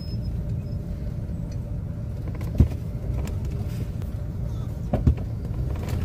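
Steady low rumble of road and engine noise heard inside a car driving slowly. Two brief knocks come through it, a sharp one about two and a half seconds in and another about five seconds in.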